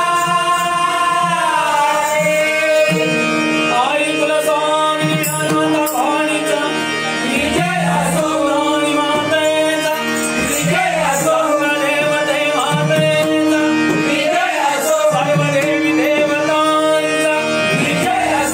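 Malvani bhajan singing: a voice sings ornamented, sliding melody lines over steady held accompanying notes and hand-drum accompaniment.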